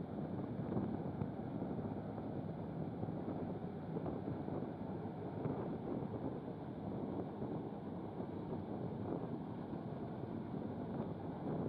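Steady low rumble of a general cargo ship passing close by, mixed with wind on the microphone.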